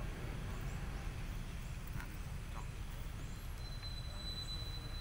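Outdoor background noise: a steady low rumble, with a couple of faint short chirps about two seconds in and a thin, high steady whistle starting past the middle.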